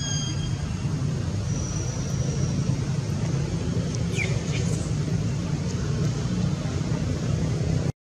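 Steady low background rumble, with a few short high-pitched chirps about four seconds in.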